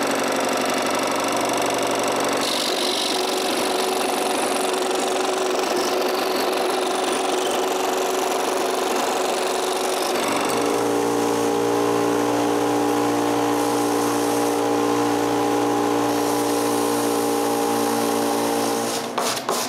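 A power tool running steadily while it works the edges of a glued-up wooden box to bring them flush. About halfway through its pitch shifts to a different steady hum.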